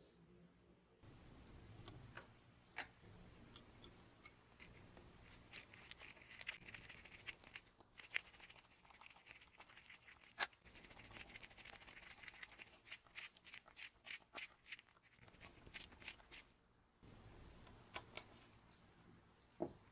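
A hand screwdriver driving a brass wood screw through a brass plate into a wooden spirit level: quiet, rapid little clicks and scratchy creaks from the screw turning, densest through the middle. A few louder taps near the end from handling the level.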